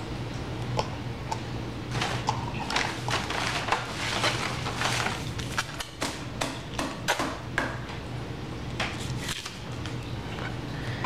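Toddler eating a Frosty with a plastic spoon: a run of small clicks, taps and scrapes of the spoon in the plastic cup and at the mouth, busiest from about two to eight seconds in, over a steady low hum.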